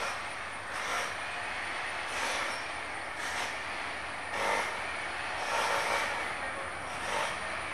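Distant airliner's jet engines on the runway: a steady rushing roar that swells and fades about once a second.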